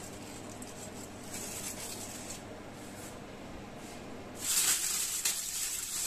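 A faint steady hum, then about four and a half seconds in a loud rustling crinkle as aluminium foil wrapped around a roasting chicken is pulled open.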